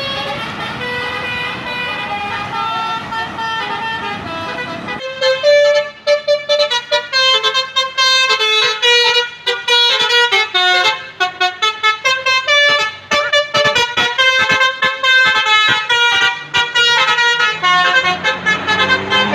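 Bus telolet horn, a Basuri multi-tone musical horn, playing a tune in stepped notes. For the first five seconds a few slower held notes sound over a steady background noise. Then it changes abruptly to a quick run of short notes.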